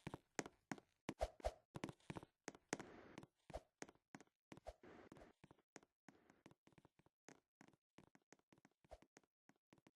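Faint, irregular light taps and knocks, several a second, with two brief rustling stretches a few seconds in.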